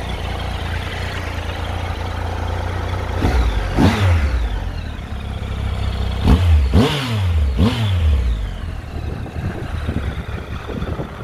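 Triumph Tiger 1200 XRT's three-cylinder engine idling through an Arrow aftermarket silencer, then revved in quick throttle blips, the revs shooting up and dropping back, four or five times between about three and eight seconds in, before it settles back to idle.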